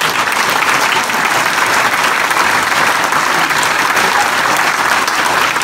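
Audience applauding steadily in a large conference room, many people clapping at once.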